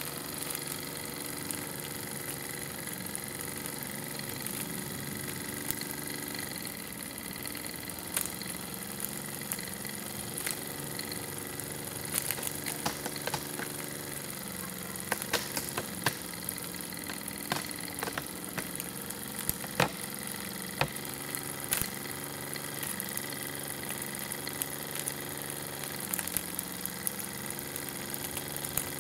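Miniature brass model steam engine running fast on steam from a small burner-heated boiler: a steady buzzing hum whose pitch wavers a little, with scattered sharp clicks through the middle.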